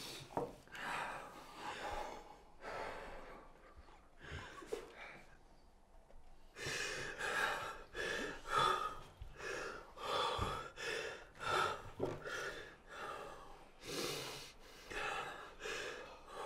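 A man crying: faint ragged, gasping breaths at first, then from about six and a half seconds in a run of sobbing breaths coming more than once a second.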